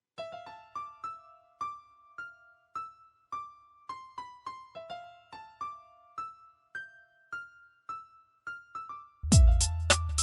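Background music: a melody of single electric piano notes, each struck and fading. About nine seconds in, a louder beat with deep bass and kick drum thuds comes in.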